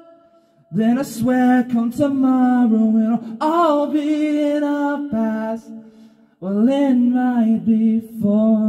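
A solo voice singing with light acoustic guitar strumming, in two held, wavering phrases with a short pause between them about six seconds in.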